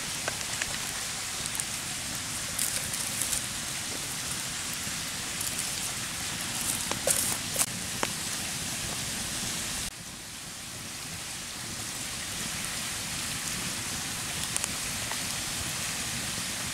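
Wood campfire burning with a steady hiss and scattered sharp crackles and pops, most of them between about three and eight seconds in.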